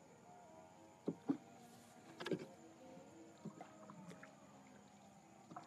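A small boat on still water: sharp knocks against the hull, two close together about a second in and a louder one a little later, then a few lighter ones, over a faint steady hum.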